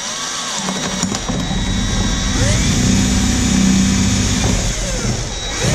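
Cordless drill running, boring a hole through the sheet-metal housing of a toaster oven. The motor's steady hum gets louder toward the middle as the bit cuts and stops near the end.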